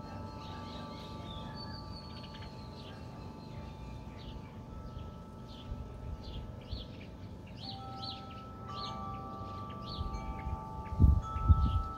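Wind chimes ringing with several long, overlapping tones while small birds chirp again and again. Near the end, gusts of wind rumble on the microphone.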